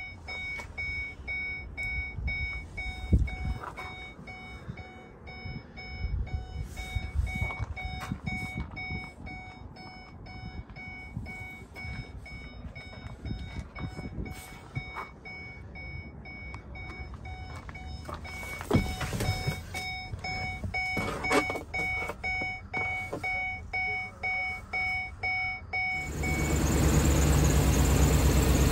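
The Ford E350 cab's warning chime repeats evenly while the driver's door stands open, with a few knocks and rustles from handling in the cab. Near the end the chime stops, and the truck's 5.4-litre V8 is heard idling steadily and loudly with the hood open.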